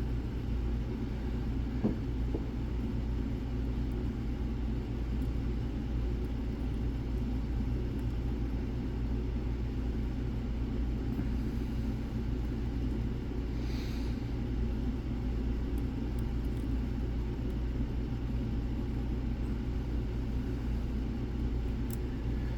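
Steady low rumble of background noise, with a few faint ticks from a lock pick working the pins of a six-pin Basi lock.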